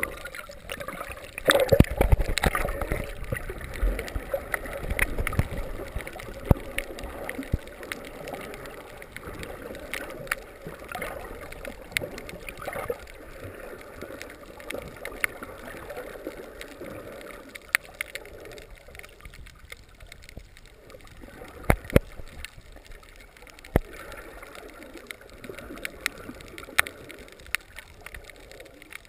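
Underwater sound picked up by a submerged camera: water gurgling and bubbling, with a louder splashy burst about two seconds in that settles into a quieter wash, and scattered sharp clicks.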